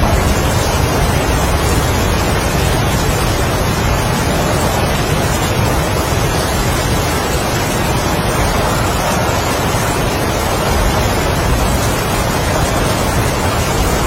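Heavy rain falling steadily with strong wind, as one continuous rushing noise; the wind swells and eases slowly in gusts.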